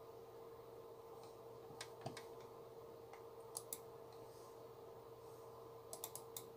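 Faint, sharp computer mouse clicks: a couple about two seconds in, a quick double click in the middle, and a short run of clicks near the end. Under them runs a faint steady hum.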